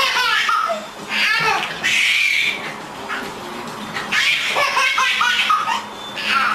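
A pet calling in a string of short calls that bend up and down in pitch, with people laughing.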